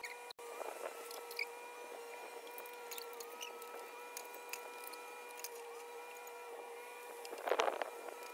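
Leaves and stems rustling and snapping softly as weeds are pulled by hand from a flower bed, with scattered small clicks and a louder rustle near the end.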